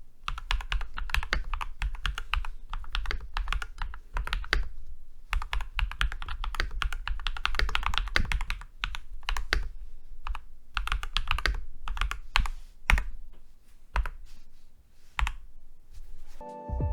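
Typing on a Keychron C2 Pro 8K full-size mechanical keyboard in stock form, with its factory linear red switches and OSA-profile keycaps: rapid runs of keystrokes that thin to single, spaced key presses over the last few seconds.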